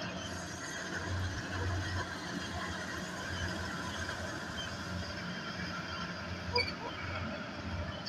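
Small rice combine harvester running steadily as it cuts and threshes, its engine giving a low, steady hum under the rattle of the machinery.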